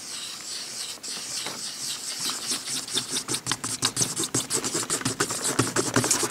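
Rapid scratching and scraping strokes over a steady hiss. They start sparse about a second in and turn into a fast, dense run that grows louder toward the end.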